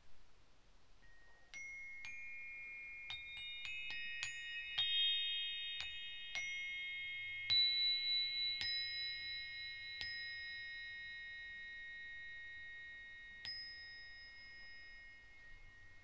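Metal chimes struck a dozen or more times at irregular intervals, several different high pitches overlapping as each tone rings on and slowly fades; the strikes thin out in the second half. They mark the close of the guided relaxation.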